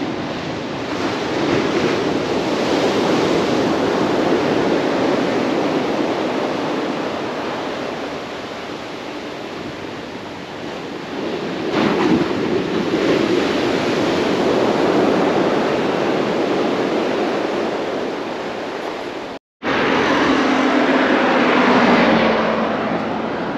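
Heavy sea surf breaking and washing up a sandy, rocky shore, swelling and fading in two long surges. Near the end, after a short cut, a vehicle's engine hums as it passes by on the road.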